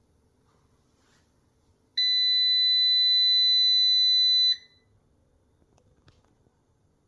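Solar inverter's alarm buzzer sounding one long, steady, high-pitched beep of about two and a half seconds, starting about two seconds in.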